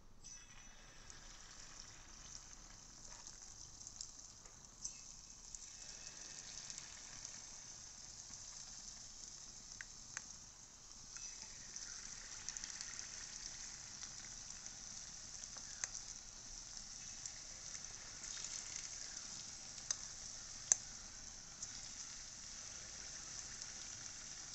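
Unniyappam batter frying in hot coconut oil in the cups of an unniyappam pan: a quiet, steady sizzle with scattered small pops and clicks as spoonfuls of batter go into the oil.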